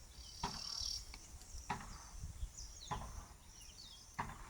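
Insects buzzing high and steady, with eastern grey plantain-eater (Crinifer zonurus) birds calling in the background. Four short sharp sounds come at even spacing, about one every second and a quarter.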